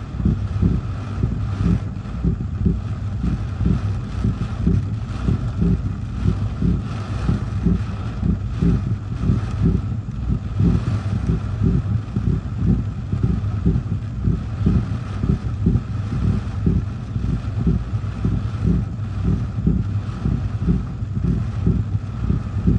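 Hurricane Nicole's gusty wind and rain heard from inside a car: a heavy low rumble of buffeting that pulses irregularly a few times a second, over a steady hiss of rain.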